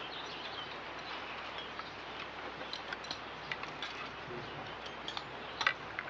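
Low steady background noise with a few scattered light clinks and taps of cutlery and dishes at a meal table. The sharpest comes near the end.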